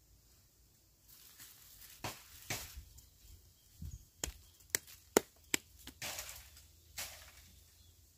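Bare hands kneading and patting a lump of wet mud: soft squelches and rustles with a string of sharp pats, most of them in quick succession around the middle.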